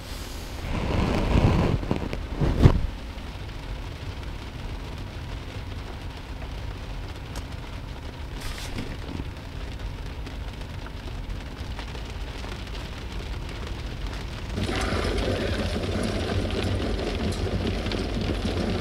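Steady rain on the car roof, heard from inside the cabin, with a couple of knocks about two seconds in. About fifteen seconds in, the film's sound from the car's screen comes up over the rain.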